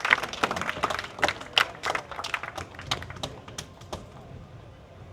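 Audience clapping, individual hand claps that thin out and die away about four seconds in.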